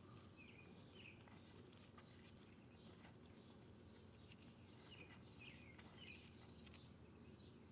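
Near silence, with a few faint bird chirps in the background, about a second in and again a few times later.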